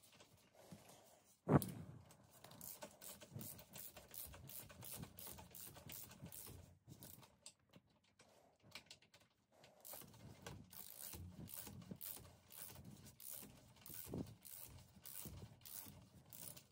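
Faint runs of quick clicks from a hand ratchet worked back and forth, driving the steering damper's mounting bolts into the handlebar risers. One sharp knock about a second and a half in.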